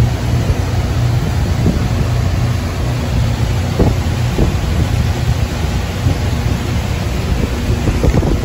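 A 1988 Carver Mariner 28 motor yacht's inboard engine drones steadily while the boat is under way, with wind buffeting the microphone.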